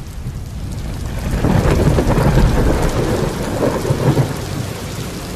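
Thunderstorm: thunder rumbling over heavy rain, swelling about a second and a half in and easing off toward the end.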